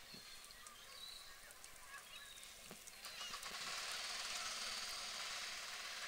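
Faint honking calls of waterbirds over outdoor ambience, with a steady hiss that grows louder about halfway through.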